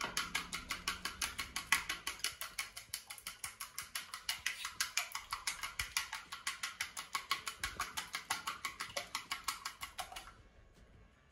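An egg being beaten in a bowl, the utensil clicking against the bowl in a fast, even rhythm of about six strokes a second. The beating stops shortly before the end.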